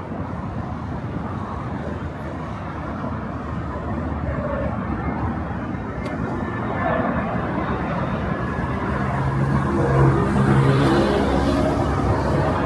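Street traffic: a motor vehicle's engine running over the general hum of the city, growing louder and loudest in the last few seconds as it comes close.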